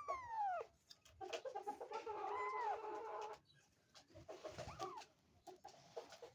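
Kitten meowing: about three meows, each rising and falling in pitch, the middle one longer and the last one short.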